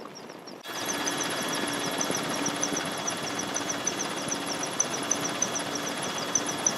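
Steady helicopter noise heard from aboard in flight, cutting in abruptly about half a second in over quieter outdoor background. A rapid, regular high ticking runs through it.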